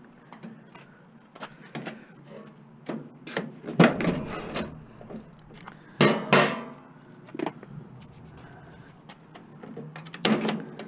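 Irregular metal clanks, knocks and rattles as a scrapped washing machine is taken apart by hand. The loudest crash comes about six seconds in and rings briefly.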